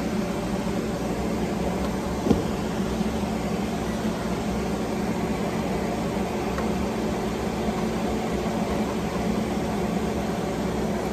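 Countertop halogen convection oven running with a steady fan hum, and a single sharp click about two seconds in.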